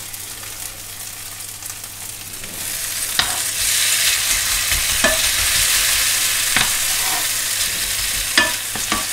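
Grated vegetable galette mixture frying in oil in a pan, the sizzle growing much louder about three seconds in as a second spoonful goes into the hot pan. A few light clicks of a spoon against the pan come through it.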